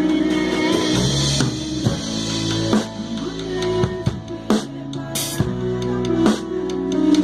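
Live band playing an instrumental passage: drum kit with kick and snare hits keeping the beat over electric bass, guitars and keyboard. A cymbal crash rings out about half a second in.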